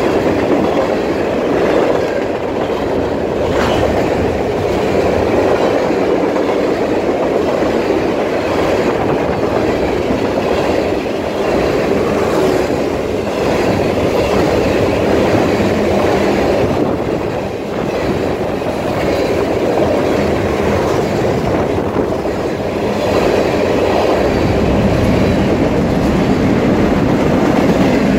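CN freight train passing close at speed, tank cars then covered hoppers: a steady rumble and rattle of steel wheels rolling on the rails, with a few faint clicks.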